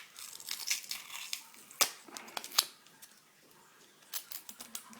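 Sharp clicks, taps and short scrapes of plastic and small metal parts as an old house telephone is being stripped down by hand, with two louder knocks near the middle.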